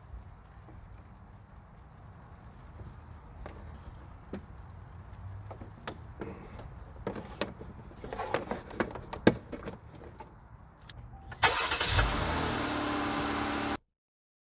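Clicks and knocks of the air hose and fittings being handled over a low rumble; about eleven seconds in, a Smittybuilt 5.6 CFM 12-volt air compressor switches on and runs loudly with a steady hum and hiss as it inflates the tyre, then cuts off suddenly.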